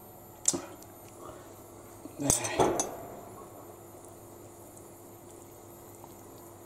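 A metal spoon clinking against an enamel soup pot: one sharp clink about half a second in, then a quick cluster of clinks and scrapes about two seconds later, over a faint steady hum.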